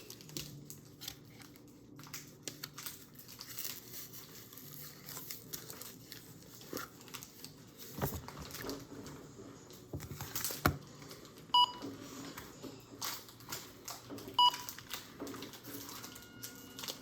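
Foil booster-pack wrappers crinkling and rustling in short scattered bursts as packs are torn open and handled. Two short electronic beeps sound about three seconds apart near the middle.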